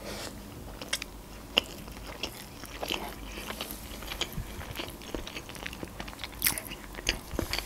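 A person chewing a mouthful of sushi roll: irregular soft crunches and wet mouth clicks, with a couple of sharper crunches about a second and a half in and near six and a half seconds.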